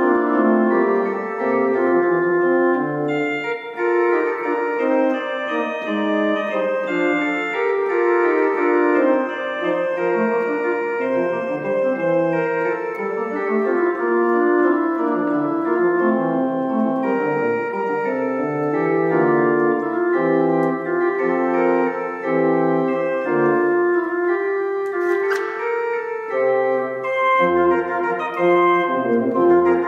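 Church organ playing a hymn introduction in held, sustained chords.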